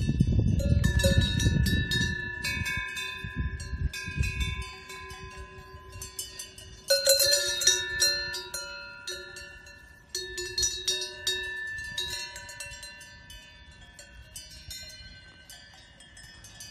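Cowbells on grazing cows clanking irregularly at several different pitches, with a loud cluster of strikes about seven seconds in and fading toward the end. A low rumble runs under them for the first four seconds or so.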